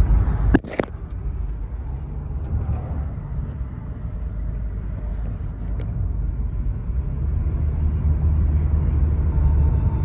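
Steady low rumble of a car's road and engine noise heard from inside the cabin while driving. There are a couple of sharp knocks less than a second in.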